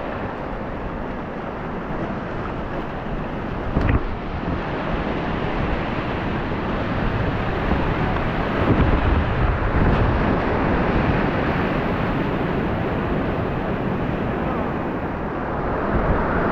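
Rushing whitewater of a river rapid heard from an open canoe, with wind buffeting the action camera's microphone: a steady rush of noise, a little louder toward the end, with one sharp knock about four seconds in.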